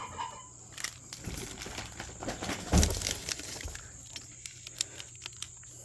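Plastic snack packaging being handled, crinkling and rustling with scattered light clicks and a louder rustle about three seconds in.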